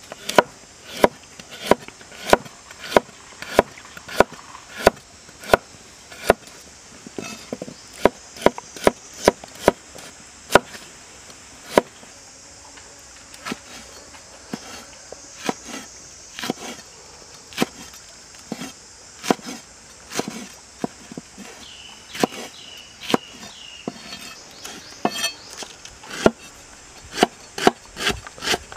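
Large kitchen knife chopping vegetables (carrot, red chili, green onion) on a wooden cutting board: sharp knocks at about one and a half a second that turn softer and less regular about halfway through. A steady high insect drone runs behind.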